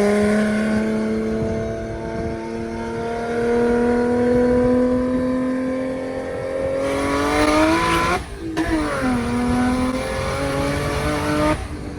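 BMW 335i's big single-turbo inline-six pulling hard from a 50 mph roll. The revs climb slowly as boost builds, then drop with an upshift about eight seconds in and climb again in the next gear before the driver lifts near the end.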